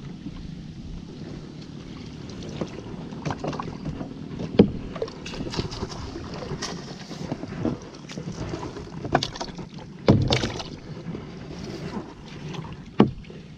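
Paddle dipping and splashing in the water beside a small boat, with several sharp knocks or splashes, the loudest about ten seconds in.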